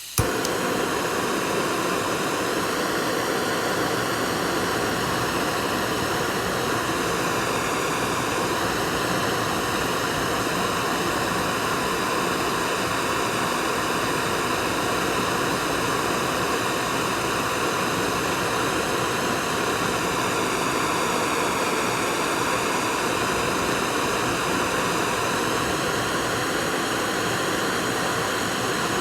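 Fire burning with a steady rushing noise, even throughout, without distinct crackles or pops.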